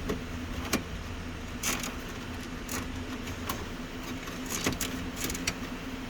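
Scattered light clicks and rattles of plastic dash trim and wiring being handled, over a steady low hum.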